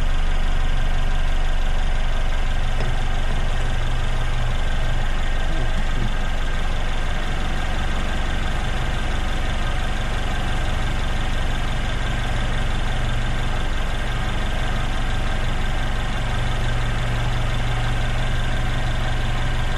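Car engine idling steadily with the hood open, running after being started for a battery cranking test.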